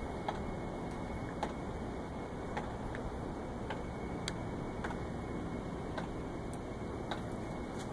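Sharp ticking clicks at an uneven pace, roughly one to two a second, over a steady background hiss.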